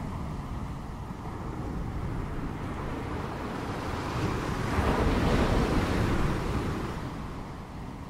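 Ocean waves washing on a shore: a steady rush of surf that swells to a peak about five seconds in, then eases off.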